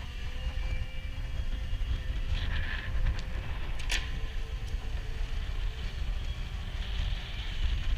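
A steady low rumble, with a brief rustle and then one sharp knock about four seconds in.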